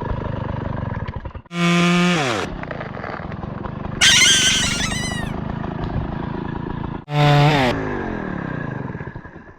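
Comic sound effects over a steady low motor-like drone: twice, a loud tone that holds for under a second and then slides sharply down in pitch, and between them a hissy burst of about a second with high squeaky chirps.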